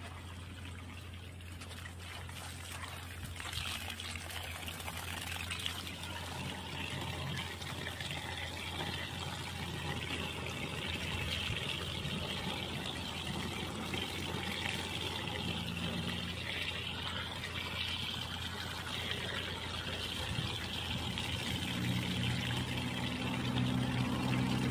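Water running from a hose into a plastic knapsack sprayer tank, filling it; the splashing grows steadily louder. A low hum joins near the end.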